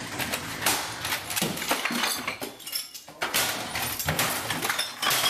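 Irregular bangs and clattering of things on a desk being struck and knocked over, with glassy clinking like bottles.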